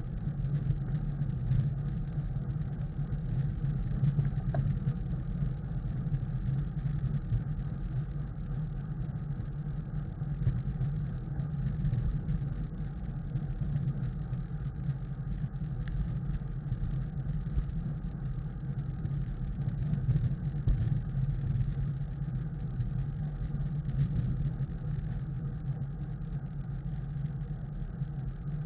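Wind rush and road noise on a bicycle-mounted camera while riding a road bike at race pace: a steady low rumble that swells a little now and then.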